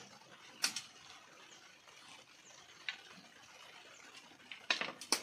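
Sharp clicks and knocks of fishing tackle being handled: a single click now and then, then a quick cluster of louder ones near the end.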